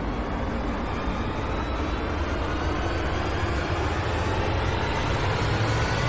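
A steady rushing, rumbling noise that slowly grows louder, with faint rising tones near the end.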